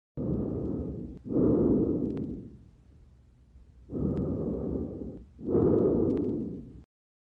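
Lung breath sounds heard through a stethoscope: two full breath cycles, each a breath in and a breath out with a brief pause between them. The second rush of each pair is the louder one.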